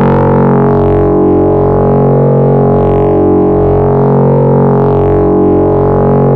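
Korg EX-800 synthesizer module playing a single held bass tone, a dense steady drone with a slight wavering in it.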